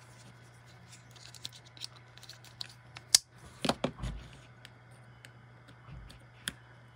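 Small plastic clicks and scrapes of an AA battery being fitted into a plastic single-cell battery holder, the sharpest click about three seconds in, followed by a soft knock as the holder is set down on the bench. A faint low hum runs underneath.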